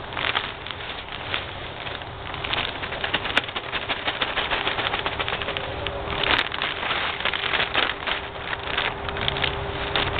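Bagged organic garden soil pouring out of its plastic bag onto dug garden dirt: a dense, steady crackling patter of falling soil, with a few sharper clicks.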